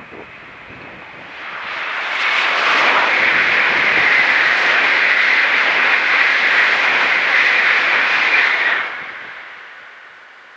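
Shinkansen 300 series bullet train passing at speed. Its rushing noise swells about two seconds in, holds steady for some six seconds, then fades away near the end.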